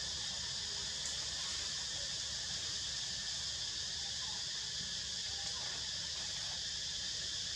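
Steady chorus of insects: a continuous high drone with no breaks, over a steady low rumble.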